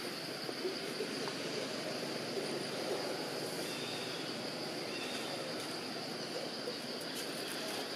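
Outdoor ambience: a steady high-pitched insect drone over constant background noise, with a few faint short chirps midway.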